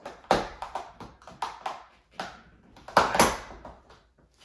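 Cordless cellular shade's headrail being worked loose from its snap-in mounting brackets: a string of uneven clicks, knocks and rattles, the sharpest just after the start and about three seconds in.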